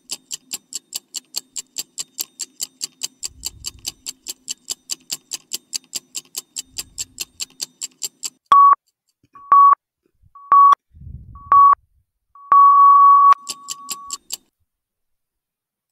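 Countdown timer sound effect: fast clock-like ticking, about four to five ticks a second, for about eight seconds, then four short electronic beeps a second apart and a longer final beep. The ticking starts again briefly just after the long beep.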